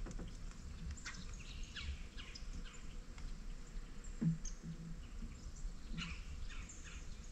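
Quiet outdoor ambience with faint, scattered bird chirps, and a brief low thump about four seconds in.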